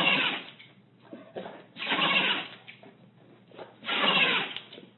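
A small animal sneezing over and over: three short, noisy sneezes about two seconds apart.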